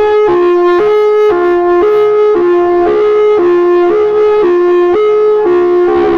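Outdoor warning siren sounding a loud hi-lo signal: two steady pitches alternating evenly, each held about half a second.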